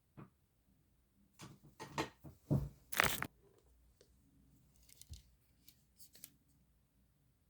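Close handling noises: a run of clicks and short scraping rasps, the loudest about two and a half to three seconds in, then a few faint ticks.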